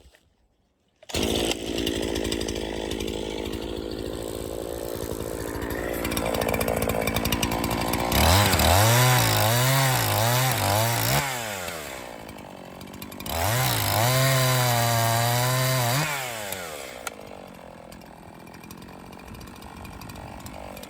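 Echo CS501P two-stroke chainsaw bucking an ash log into firewood rounds. It runs at part throttle for several seconds, then goes to full throttle for two cuts of about three seconds each, about eight and thirteen seconds in. The engine pitch wavers under load during the cuts, and the saw drops back to lower revs between and after them.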